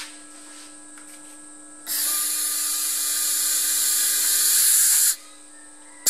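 MIG welding torch triggered without striking an arc: a loud shielding-gas hiss with a faint whine runs for about three seconds, cuts off, and starts again near the end. It is the sign that the gas is now turned on and flowing.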